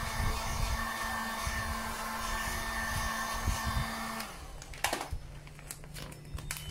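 Handheld electric heat gun blowing hot air over vinyl wrap film to soften it. It runs steadily with a slight whine and switches off about four seconds in, followed by a few faint clicks.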